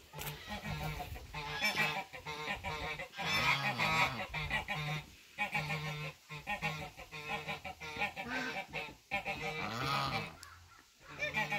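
Domestic geese honking over and over in a long run of loud calls with short pauses, calling to be fed.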